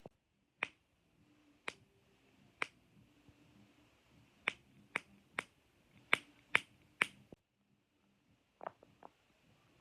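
Sharp, clean clicks of a fidget toy being worked, about a dozen at uneven spacing, bunched into a quick run around the middle, with two fainter clicks near the end.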